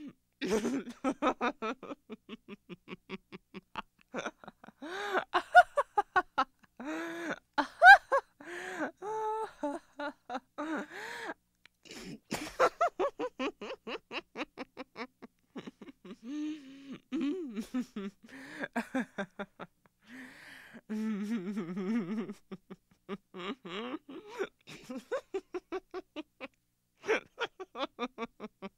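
A woman giggling and laughing in repeated bouts of quick, rapid-fire pulses, with short pauses between bouts; the loudest bursts come about five and eight seconds in.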